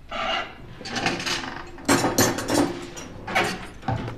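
Knife and fork working on a plate, cutting into a beef Wellington, with about five short scraping and clinking bursts.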